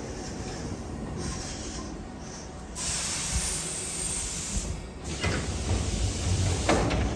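Six-car electric commuter train drawing into the platform and slowing to a stop, with a steady low running rumble. About three seconds in, a loud hiss of air lasts roughly two seconds, followed by a lower rumble and a short burst of noise near the end.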